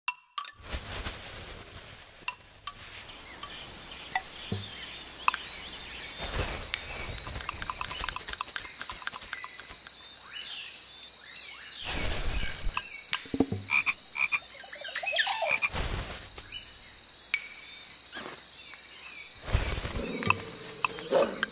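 Tissue paper rustling and crinkling in several short bursts, over croaking calls and a steady high-pitched tone.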